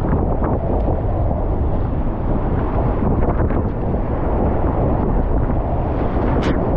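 Whitewater rapids rushing around a kayak, heard close up at water level with heavy wind buffeting on the microphone. A few brief paddle splashes cut through, the sharpest near the end.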